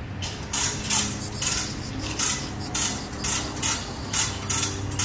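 A hand tool worked in a steady back-and-forth rhythm on the old exhaust of a car up on a lift, a burst of metallic noise with each stroke, about two strokes a second, over a low steady hum.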